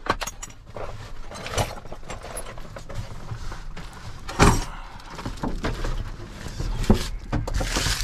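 Handling noise in a pickup truck cab: a tool bag rustling and things knocking and clicking, with a sharp knock about four and a half seconds in, over a low steady hum.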